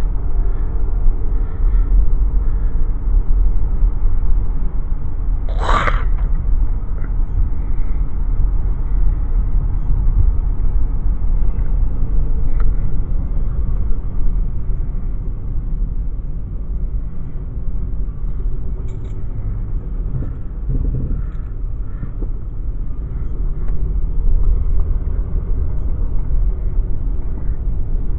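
Passing train: a steady low rumble, with a brief sharp, high-pitched sound about six seconds in.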